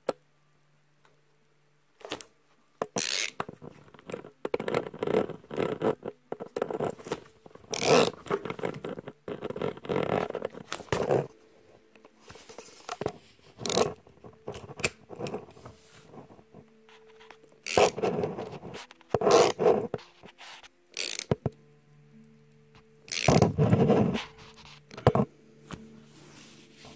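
Ratchet screwdriver turning a stud-installation tool to drive a metal grip stud into a centre knob of a Surly Bud fat-bike tire: irregular bursts of ratchet clicking and scraping, in stops and starts.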